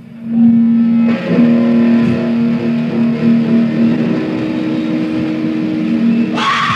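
Hardcore punk band recording: a held, distorted electric guitar note drones steadily over dense band noise. Near the end a louder sound sliding down in pitch cuts in.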